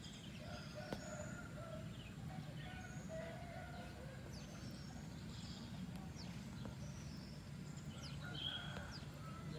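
Birds chirping faintly in short, scattered calls and quick gliding whistles, over a steady low outdoor hum.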